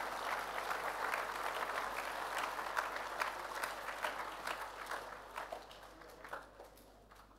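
Audience applauding, a dense patter of many hands clapping that thins out and dies away over the last couple of seconds.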